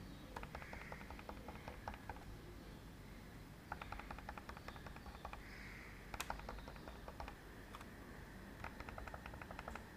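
Three quick runs of light clicks, about a dozen a second, from dots being tapped out one by one to draw a dotted outline on a computer whiteboard, with one sharper single click about six seconds in.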